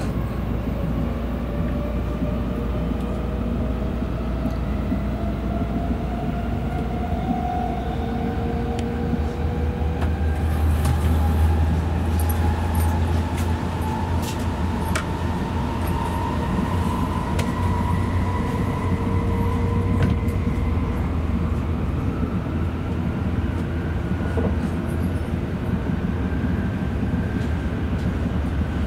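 Tokaido Shinkansen bullet train heard from inside the passenger car as it pulls away and gathers speed. The traction motors' whine rises slowly in pitch over a steady low rumble, with scattered sharp clicks from about ten seconds in.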